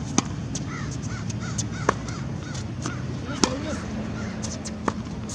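Tennis rally: four sharp hits of the ball on the racket strings, about a second and a half apart. In the background a run of short repeated calls sounds between the first hits.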